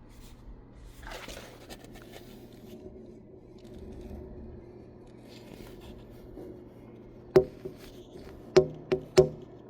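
A low steady hum with faint rustling, broken near the end by four sharp knocks: one, then three in quick succession.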